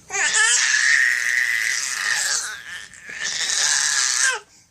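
Baby making a weird, raspy squealing noise twice: a long one lasting over two seconds, then a shorter one after a brief pause.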